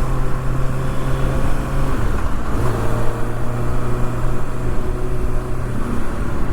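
2024 Kawasaki ZX-6R's inline-four engine running steadily on the road. Its note drops briefly about two seconds in, then picks up again.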